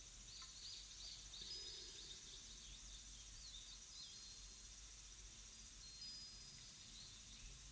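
Faint birdsong: many short, quick chirps over a soft, even background hiss, thinning out in the second half.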